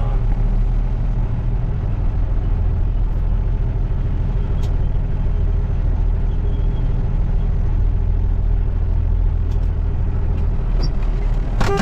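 The diesel engine of a 2007 Kenworth dump truck running steadily as the truck drives, a continuous low drone.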